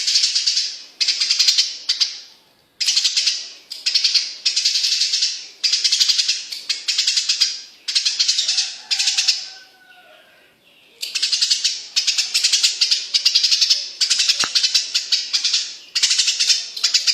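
Eurasian tree sparrow chirping loudly and without letup in rapid runs of chirps, bout after bout about a second long, with two short pauses.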